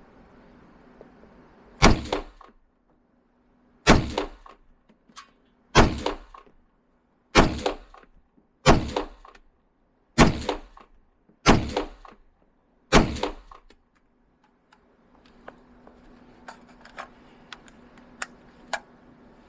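Eight single shots from an MSBS Grot airsoft gun, spaced one to two seconds apart, each a sharp crack followed by a softer knock. Faint clicks follow near the end.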